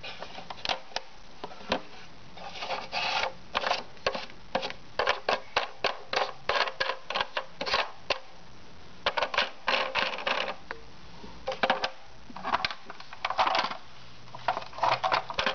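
Plastic clicking and rattling from a Fisher-Price baby activity toy as a hand works its spinning knobs and roller: bursts of quick clicks, several a second, separated by short pauses.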